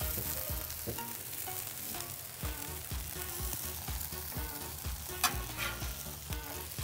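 Stacks of fried bologna and salami sizzling on a hot flat-top griddle, with one sharp click about five seconds in. Background music with a steady beat plays underneath.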